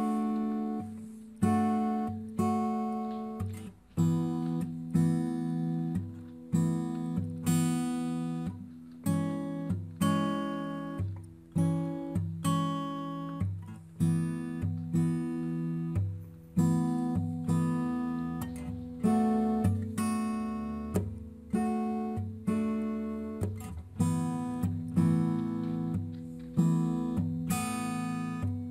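Acoustic guitar background music: plucked chords struck at an even pace, a little over one a second, each ringing and fading before the next.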